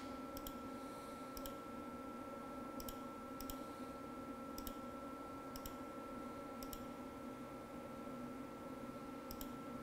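Faint, scattered computer clicks, about nine of them at uneven intervals, made while trimming lines in CAD software. They sit over a steady high-pitched whine and a low electrical hum.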